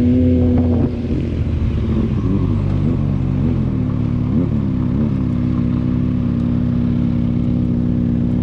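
Kawasaki Z1000R's inline-four engine through its stock exhaust. It holds high revs, the throttle shuts about a second in, then it gives about five short rev blips and settles to a steady low engine speed.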